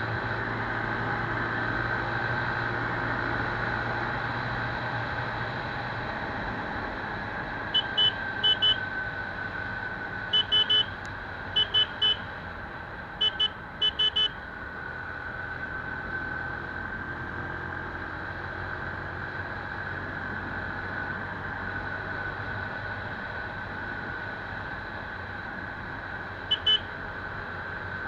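Keeway 100cc engine running steadily at high road speed, with its pitch dipping slightly about halfway and then rising again. Short, loud horn toots sound in quick pairs several times in the middle and once more near the end.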